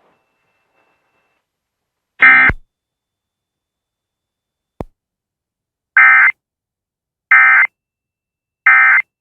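Emergency Alert System SAME digital data bursts, the end-of-message code that closes the alert: four short, loud, buzzy warbles, one about two seconds in and three spaced about a second apart near the end, with a single click between.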